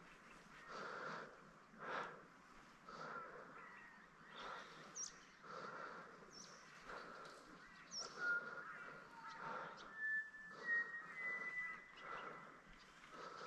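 Quiet outdoor ambience with birds calling: a few short high chirps in the middle and several held whistled notes in the second half. Under them is a soft rustle that comes about once a second.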